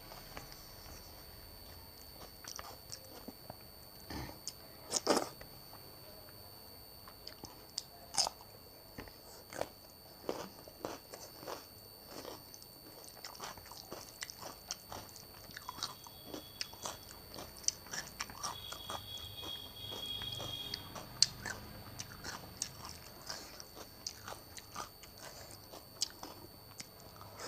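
Close-miked chewing and biting, a person eating masala khichdi, dal, yogurt and cucumber: irregular crisp crunches and wet mouth clicks, with a faint steady high-pitched whine underneath.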